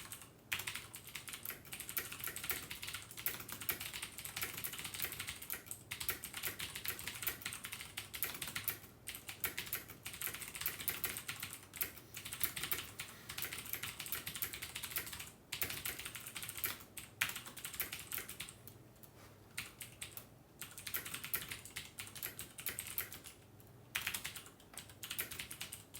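Fast touch typing on a computer keyboard: a dense, rapid run of key clicks, about 95 words per minute, broken by a few short pauses.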